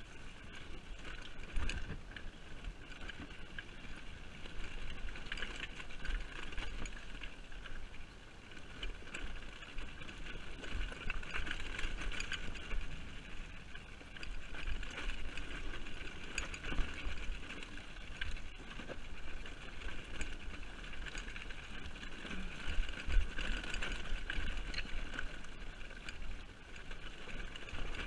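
ATV engine running as the quad rides a rough, rocky forest trail, with frequent irregular knocks and bumps from the terrain.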